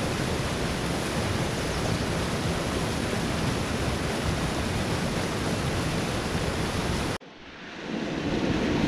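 Water pouring over a small spillway into churning whitewater, a steady rushing noise. About seven seconds in it cuts off suddenly, then comes back quieter and swells up again.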